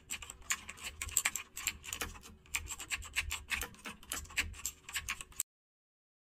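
Typing sound effect: rapid, irregular key clicks that match text being typed out on screen, stopping abruptly about five seconds in.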